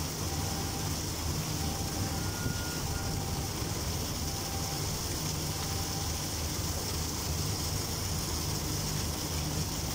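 Propeller wash from a moored ship's running propeller churning and rushing in the water against the hull and quay, over a steady low drone from the propeller and engine. The ship is turning its propeller while tied up alongside, in an engine test.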